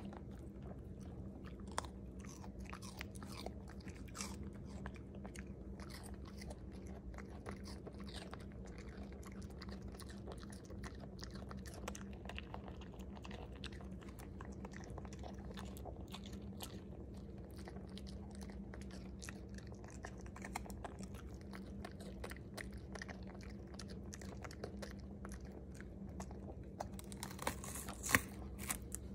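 A dog chewing and crunching pieces of raw red bell pepper, with many small crunches and a few louder ones near the end, over a steady low hum.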